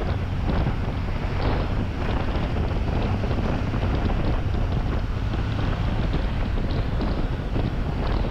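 Wind buffeting the GoPro's microphone on a motorcycle riding at around 70–80 km/h, a steady rumbling rush, with the bike's engine droning low underneath.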